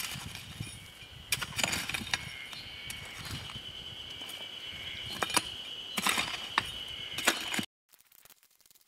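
A steel shovel scraping and clinking through stony soil as a dug-out hole is filled back in, in a few separate scoops, over a steady high insect drone. The sound cuts off suddenly near the end.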